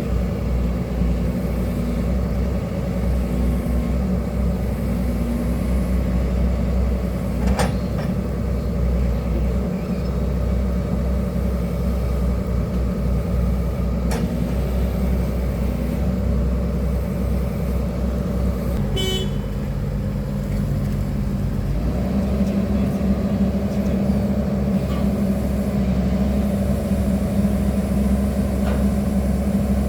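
Excavator's diesel engine running steadily, its note changing about 22 seconds in, with three brief clicks along the way.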